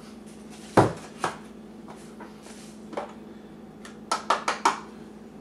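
Kitchen utensils clicking and knocking against bowls and containers while spices are measured out: one sharp knock about a second in, a couple of lighter ones, then four quick taps near the end.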